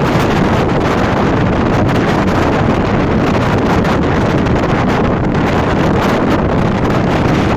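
Tirupati–Rameswaram express train running at speed: a loud, steady rushing noise with wind buffeting the microphone.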